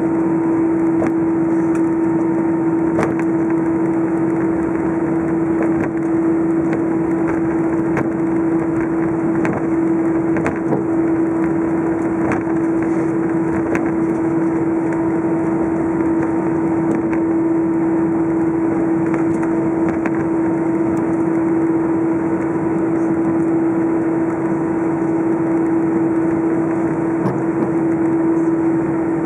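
Steady cabin drone of an Airbus A319 taxiing with its jet engines running, heard from inside the cabin. A strong steady hum sits over a broad rushing noise, with a few faint clicks here and there.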